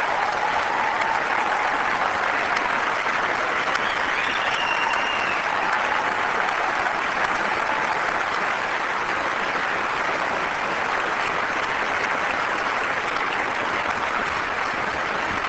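Large audience applauding steadily, welcoming a speaker to the podium.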